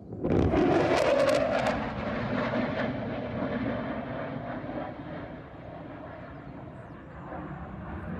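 F-35 fighter jet's afterburning turbofan engine heard in a fly-by. It comes in suddenly and loudly, crackles for the first second and a half, then settles into a steady roar that slowly eases. The narration presents the pass as the jet breaking the sound barrier.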